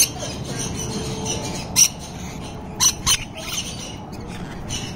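Rainbow lorikeets giving short, shrill screeches, about four of them spread over a few seconds.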